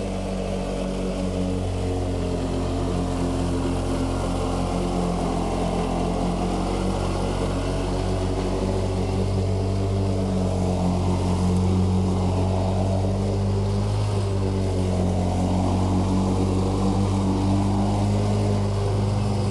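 Engine of a large lawn mowing machine running steadily, a low, even drone.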